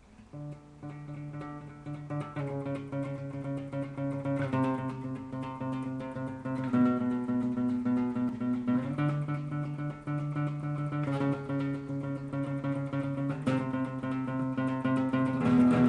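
Acoustic guitar strummed, changing chord about every two seconds, starting soft and growing louder, as an instrumental lead-in.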